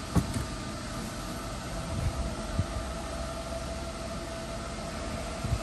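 Belt conveyor running at its top speed, its inverter-driven drive motor giving a steady whine over a running hum. A few soft low thumps come through it.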